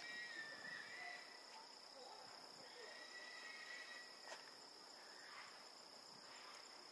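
Faint, steady high-pitched insect drone, with two faint wavering calls: one at the start and another about three seconds in.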